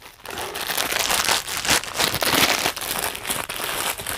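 Black plastic bag crinkling and rustling in the hands as a Funko Pop vinyl figure is unwrapped from it: a dense run of small crackles.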